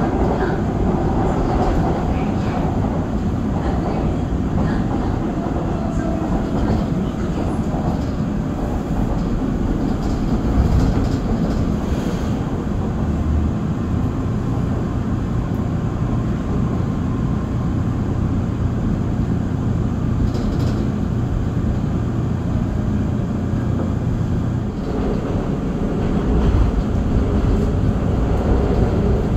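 Seoul Metro Line 2 subway train running along the track, heard from inside the car: a steady rumble of wheels on rails, with a faint gliding motor whine in the first few seconds. About 25 s in, the sound changes abruptly.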